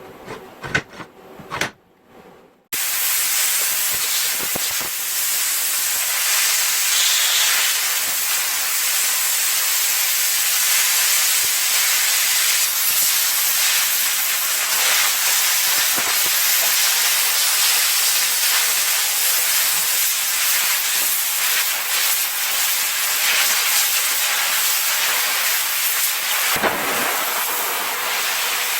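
A few light clicks, then a loud steady hiss that starts suddenly about three seconds in and keeps on evenly.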